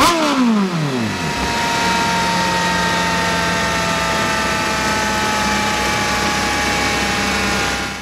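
Kawasaki Z900's inline-four engine breathing through an SC Project full-system exhaust. It is blipped at the very start, the revs fall away over about a second and a half, and it then settles to a steady idle.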